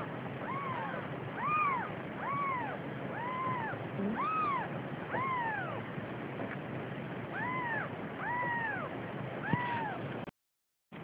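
A cat meowing over and over, about nine cries, each rising and then falling in pitch over about half a second, with a short pause midway. The sound cuts out briefly near the end.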